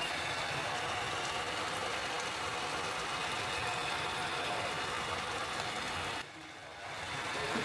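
Onion-tomato masala simmering and sizzling steadily in a pot, a constant hiss that dips briefly about six seconds in.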